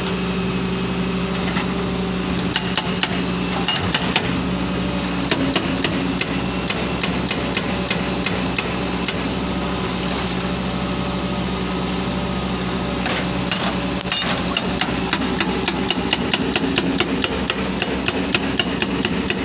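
Hydraulic rock breaker on a Hitachi 130 wheeled excavator hammering rock in runs of rapid blows, over the excavator's diesel engine running steadily. The blows come thick a few seconds in, thin out through the middle, and pick up again for the last several seconds.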